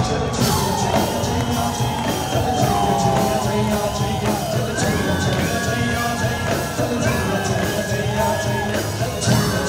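Live a cappella vocal performance: several beatboxers keep up a steady percussive rhythm with their mouths while a male lead voice sings a gliding melody over it.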